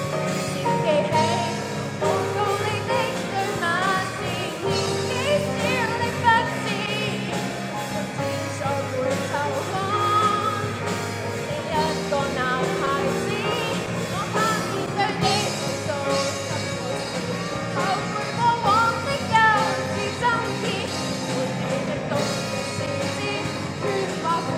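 Live rock band playing: a woman sings into a microphone over electric guitar, bass guitar and drum kit.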